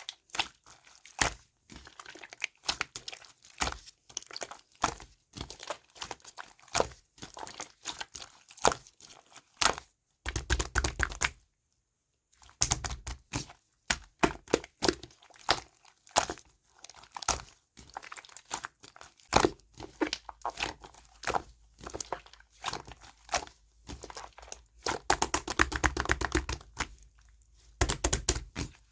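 Mixed slime being pressed, poked and stretched by hand, giving dense runs of sharp sticky clicks and crackles as air pockets in it pop. There is a brief break about twelve seconds in.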